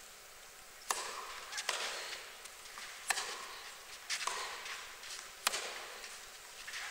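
Tennis ball struck by rackets in a rally, starting with the serve: about six sharp hits a little over a second apart, each trailing a short echo in a large indoor arena.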